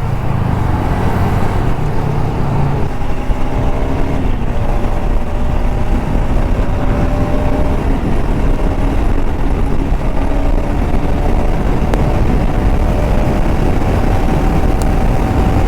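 Bajaj Pulsar RS200's single-cylinder engine pulling under way, heard from the rider's helmet over heavy wind rush. Its note climbs slowly, drops with an upshift about four seconds in, then climbs steadily again.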